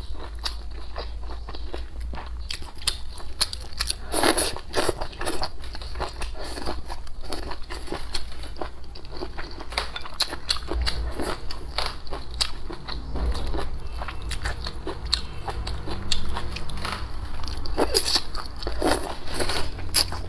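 Close-up mouth sounds of chewing and crunching cold-dressed shredded kelp salad, a run of short crisp crunches and wet clicks. There are louder spells of crunching about four seconds in and again near the end.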